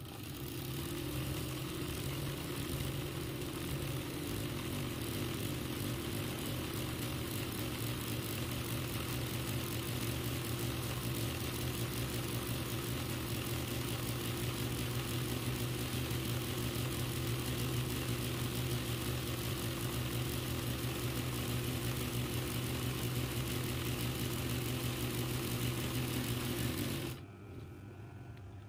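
RANEW 130 zigzag embroidery machine running steadily, stitching through hooped fabric: a steady motor hum with rapid needle stitching. It stops shortly before the end.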